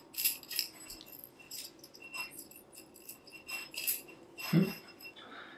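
Aluminium tubes of a tensegrity model clinking and jangling against each other as they are handled and cord is threaded into them: scattered light metallic taps, each with a brief ringing tone. A louder, duller knock comes about four and a half seconds in.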